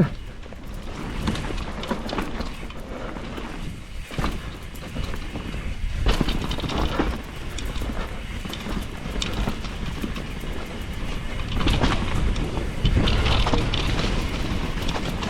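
Mountain bike descending a rough, wet trail: a constant rush of tyre and riding noise with irregular knocks and clatters as the bike goes over rocks and roots.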